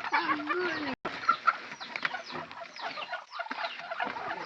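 Chickens clucking, with a busy run of short, high, falling peeps from several birds at once. The sound drops out for an instant about a second in.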